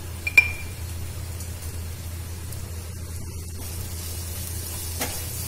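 Chopped onion and capsicum frying in a non-stick pan: a steady soft sizzling hiss over a low hum. A metal spoon gives one sharp clink against the pan about half a second in, and there is a small click near the end.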